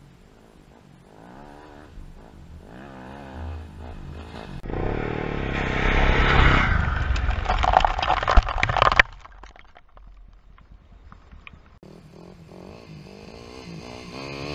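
Dirt bike engine revving as it approaches, growing loud as it passes close to the ground, with dirt clods spraying and pattering around it. The sound drops away suddenly about nine seconds in, and the engine is heard building again near the end as the bike comes back.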